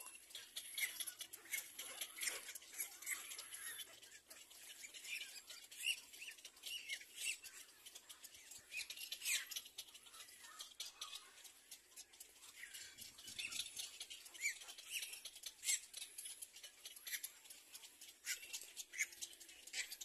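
Little black cormorant chicks begging for food: a stream of short, high, squeaky cries and chirps in quick succession, with brief lulls.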